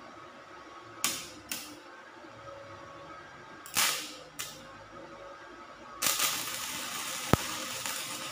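Stick-welding arc from a Blackfoot MMA-120 inverter welder set to 60 amps, on 5 mm steel plate. The electrode is struck on the plate in short sparking bursts, once about a second in and again near four seconds. At about six seconds the arc catches and burns as a steady hissing crackle.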